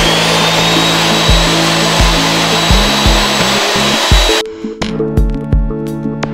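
CNC router spindle motor that has just spun up, running at speed with a high steady whine over a loud rushing noise, then cutting off suddenly about four seconds in. Background music with a steady beat plays throughout.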